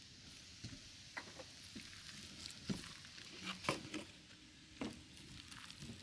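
Gloved hand kneading and mixing minced pork with cornstarch in a stainless steel bowl: faint squishing of the meat, with a few soft clicks scattered through.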